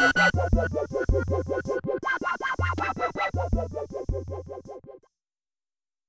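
Instrumental music: fast, evenly repeating pitched notes over pulsing low bass notes. It fades down and stops about five seconds in.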